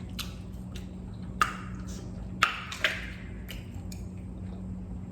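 Eating noises at the microphone: a few sharp mouth clicks and smacks, the loudest about two and a half seconds in, over a steady low hum.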